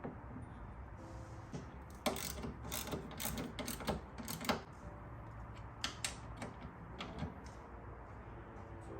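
Hand ratchet wrench clicking in short runs, tightening the bolts of a hardtop latch.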